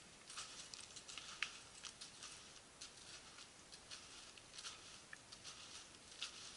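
Faint crunching of snowshoes stepping through snow, about two soft steps a second.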